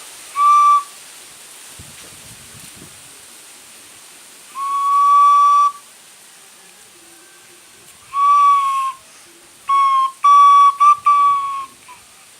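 A small whistle blown in six short toots at one steady, high pitch. The longest runs about a second, and the last few come close together near the end.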